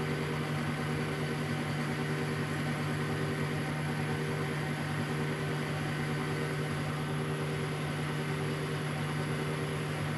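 1972 Weiler Matador SV lathe running steadily at 600 rpm, a constant even-pitched hum of its motor and gearing, while a carbide insert takes a light oiled facing cut fed slowly by hand.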